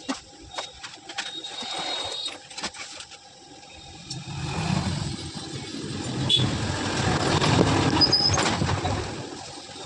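A passing vehicle: its noise builds from about four seconds in, peaks, and fades near the end, over scattered clicks and taps.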